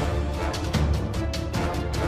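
Background music with a driving percussive beat over low held notes.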